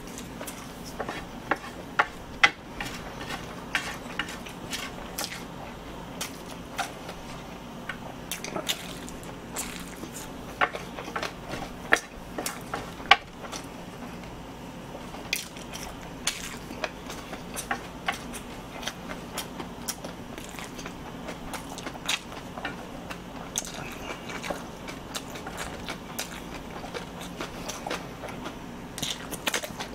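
Close-miked chewing of cold spicy mixed noodles, with chopsticks clicking and scraping on a large plate in irregular sharp ticks throughout.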